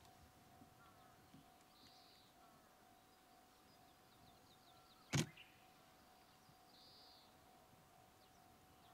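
Quiet outdoor near-silence: a faint steady hum, two short high calls about five seconds apart, and one sharp click just past the middle.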